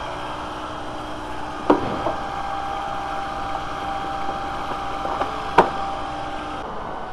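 VW 2.0L four-cylinder engine idling steadily while it warms toward operating temperature during a thermostat check. Two sharp knocks about four seconds apart stand out over the hum.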